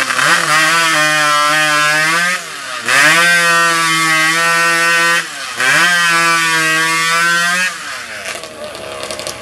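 Timbersports hot saw, a custom racing chainsaw with a two-stroke motorcycle-type engine, running flat out through a log in three cuts to take off three discs. Its pitch dips briefly between the cuts, about two and a half and five seconds in. After about eight seconds it drops back to a lower, rougher idle.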